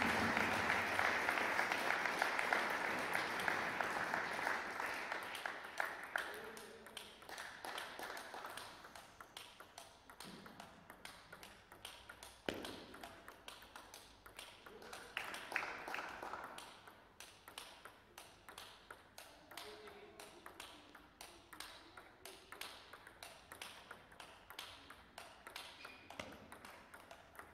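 Clapping that dies away over the first six seconds, then the sharp clicks of a table tennis ball striking bats and the table during a rally.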